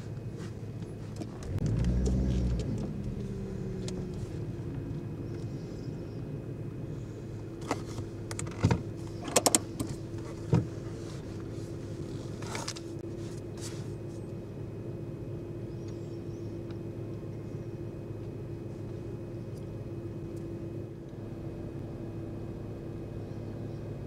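Car idling in a queue, heard from inside the cabin: a steady low engine hum, swelling into a brief louder rumble about two seconds in. Several sharp clicks and knocks come near the middle.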